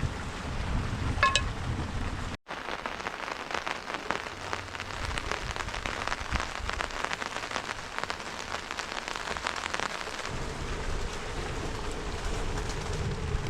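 Light rain falling, with many small drops ticking on a surface. A low wind rumble is heard near the start and again over the last few seconds.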